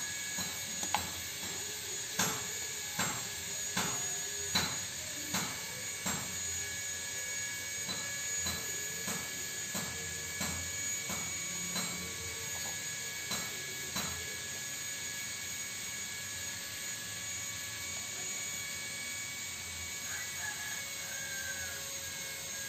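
A steady machine hum with several constant high whining tones, and a run of light sharp ticks about every three-quarters of a second that stops about two-thirds of the way through.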